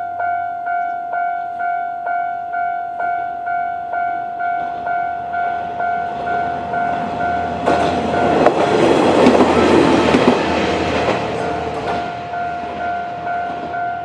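Japanese level-crossing warning bell ringing steadily at about two strokes a second. About eight seconds in, a Kanto Railway KiHa 2000-series diesel railcar passes over the crossing: its running noise swells for about four seconds and its wheels click over the rail joints, while the bell keeps ringing.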